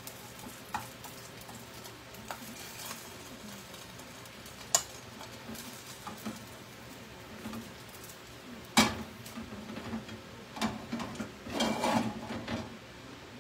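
Chopsticks clicking and scraping against a frying pan as Spam slices are turned and lifted out, over a faint sizzle. There are scattered sharp clicks, a louder knock about 9 s in, and a run of utensil and dish clatter near the end.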